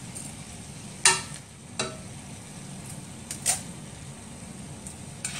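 Steel ladle clinking against a metal mesh strainer and the pot as cooked basmati rice is spooned in. There are three sharp, ringing clinks, about one, two and three and a half seconds in, over a steady low background hiss.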